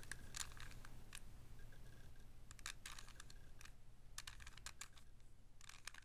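Plastic 3x3x3 Rubik's cube being turned by hand: faint, irregular clicks and clacks of its layers snapping round as a second-layer algorithm is worked through.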